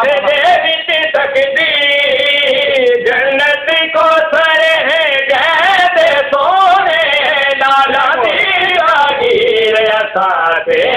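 Two men singing a Punjabi devotional qaseeda unaccompanied, holding long wavering notes with ornamented slides in pitch.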